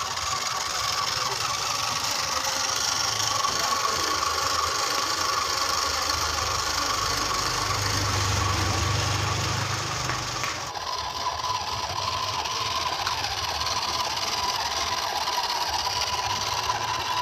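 Small electric motor and gearbox of a homemade 1/10-scale RC dump truck whirring steadily with a thin whine as it drives over concrete under a full load of mangoes.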